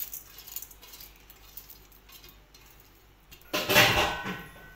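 Kitchen handling noise: faint light clinks, then about three and a half seconds in a loud clattering rustle lasting about a second as a steel bowl and the things by the kadhai are moved.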